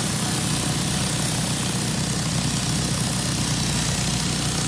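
Honda gas-engine pressure washer running steadily at full throttle, with the hiss of high-pressure water spraying under a surface cleaner on concrete.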